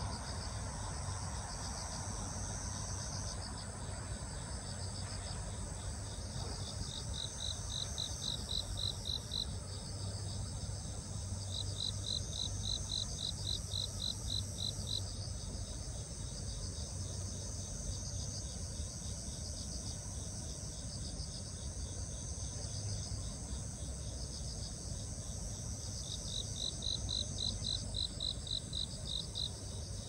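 Wild insects singing in chorus: a steady high trill runs throughout, and a louder pulsed chirp of about four or five pulses a second comes in three runs of a few seconds each.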